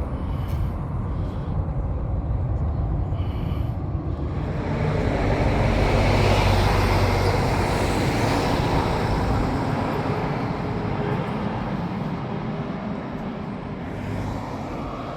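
Jet aircraft passing overhead: a steady engine rumble swells to its loudest around six to eight seconds in, then slowly fades.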